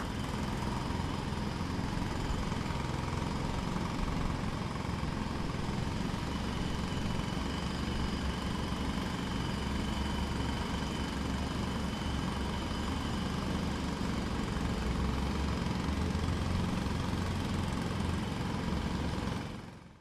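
Distant jackhammer hammering in a fast, steady rattle, fading out near the end.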